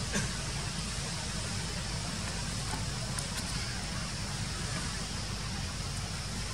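Steady outdoor background noise: a low rumble under an even hiss, with one faint click just after the start.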